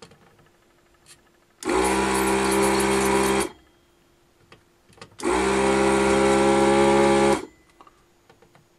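Vacuum pump of a ZD-985 desoldering station running in two bursts of about two seconds each, switched on and off by the gun's trigger, as it sucks molten solder off a chip's pins through the heated desoldering gun.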